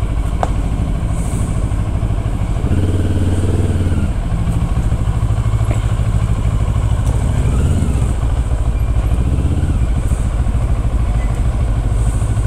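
Motorcycle engine running at low speed, with a brief rise in throttle about three seconds in and another smaller one near eight seconds. Other motorcycles are running close ahead.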